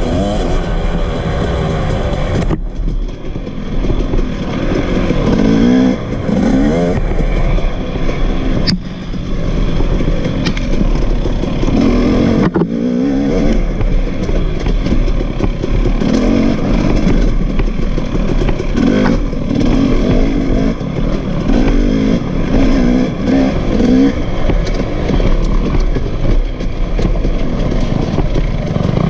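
KTM two-stroke dirt bike engine heard from on board, revving up and dropping off over and over as the throttle is worked along a rough trail.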